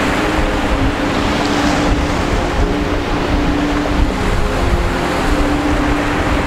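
Engine of a traditional tuna fishing boat running steadily with a constant drone, over a rush of wind and sea water.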